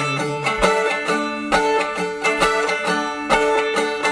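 Instrumental break of an upbeat country-style song: a plucked string instrument picking a steady rhythm, with no singing.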